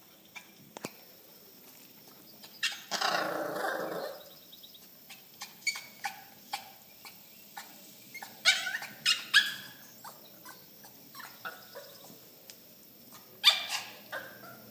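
Small dogs in a wire pen barking and yipping in short, sharp bursts, with a longer rough burst about three seconds in and a loud cluster of barks near the end.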